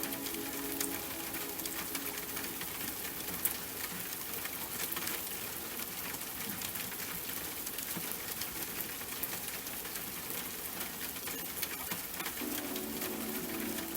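Steady rain falling, a dense hiss full of small drop ticks. Soft sustained music tones fade out in the first few seconds and come back near the end.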